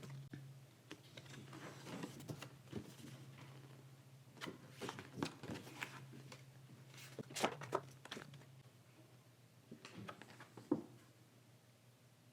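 Stiff paper sheets being handled and laid down: scattered soft slaps, taps and rustles, with a faint low hum underneath that fades out about two-thirds of the way through.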